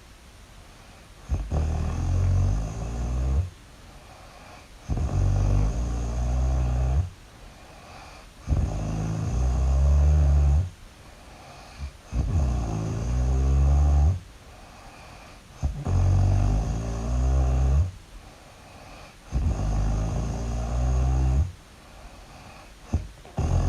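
Loud snoring: a long, deep snore about every three and a half seconds, seven in all, with quiet breaths between.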